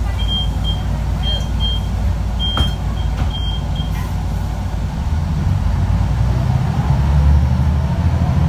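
Articulated bus's diesel engine heard from inside the cabin, running low under a string of short high electronic beeps at one pitch in the first few seconds. About five seconds in the engine loads up, and a whine rises steadily in pitch as the bus gathers speed.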